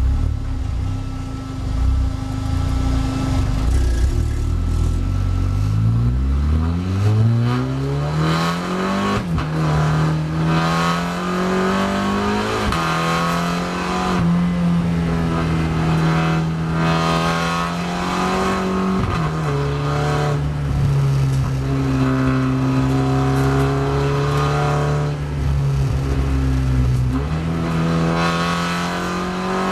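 SEAT Leon Supercopa race car's turbocharged four-cylinder engine, heard from inside the cockpit: a low rumble at first, then about six seconds in it pulls away and accelerates hard, its pitch climbing and dropping back at each gear change.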